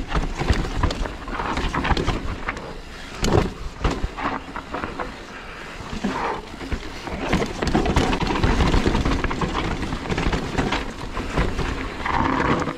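Mountain bike riding down a rough dirt trail: tyres rumbling over rocks and roots, with frequent knocks and rattles from the bike and a sharper knock about three seconds in. Wind buffets the microphone underneath.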